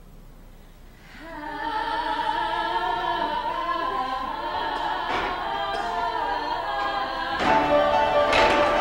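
Several voices singing a song from a stage musical together in harmony, holding long notes. The singing begins about a second in and swells louder near the end.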